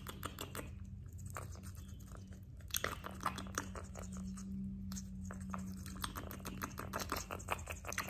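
Quaker parrot nibbling a raw red bell pepper: a quick run of small crisp clicks and crunches from its beak biting into the flesh, a little louder about three seconds in.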